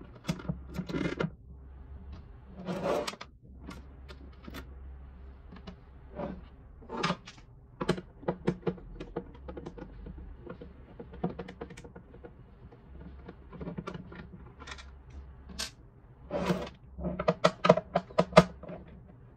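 Hands and a screwdriver working on the plastic housing of a Xiaomi Mijia humidifier while its screws are taken out: scattered small clicks, taps and scrapes of plastic, with a quick run of sharp clicks near the end.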